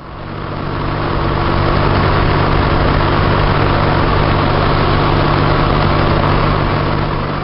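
Steady rush of road and wind noise with a low engine drone, heard from inside a moving vehicle at road speed. It swells up in the first second and begins to fade near the end.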